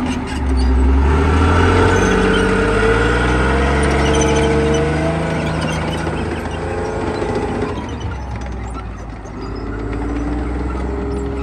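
Challenger main battle tank's V12 diesel engine running loud as the tank drives past on its tracks. The engine note falls over the first few seconds, eases off near the end, then picks up again.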